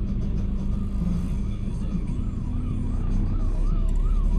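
Dense city traffic with engines rumbling. From about a second in, a siren warbles up and down about twice a second.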